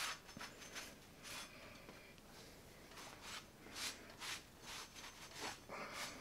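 Faint, irregular swishes of a cloth rag wiping excess quench oil off a freshly hardened leaf-spring steel cleaver blade, about one or two strokes a second.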